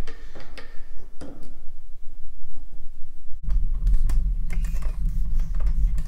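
Scattered light metal clicks as a hand spanner wrench turns the threaded gland nut out of a hydraulic cylinder. About three and a half seconds in, a steady low hum starts abruptly and keeps going.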